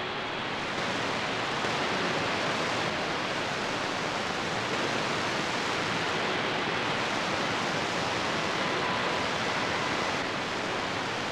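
Shortwave radio static: steady hiss from a Retekess V115 portable receiver tuned to 15520 kHz, with the weak signal buried in the noise. A few faint whistling tones come and go.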